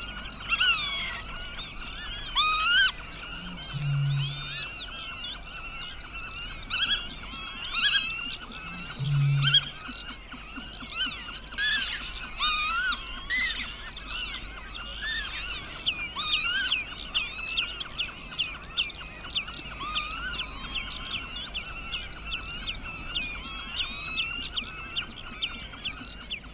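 A chorus of many marsh birds calling over one another, with short wavering calls throughout, and two deep, short hoots about four and nine seconds in.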